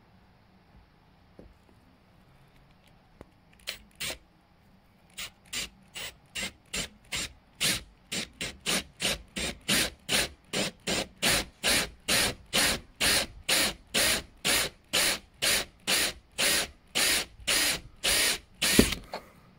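Cordless drill with a 19 mm hole saw cutting through a camper van wall panel: a fast series of sharp grinding pulses, about two a second, starting a few seconds in and growing louder as the saw bites.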